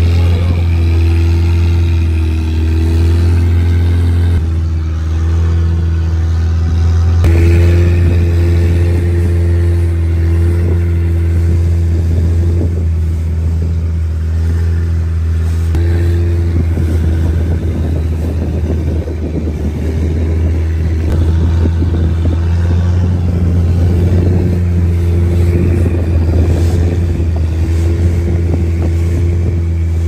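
Motorboat engine running steadily at a constant speed, a loud low hum. From about halfway, wind and water rush build up over it.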